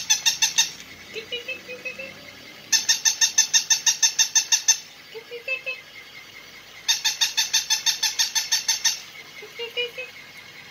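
Battery-operated walking plush puppy toy giving electronic yaps in quick runs of about seven a second, in bursts of about two seconds with pauses between: one ending just after the start, then two more. A few short, softer sounds fall in the pauses.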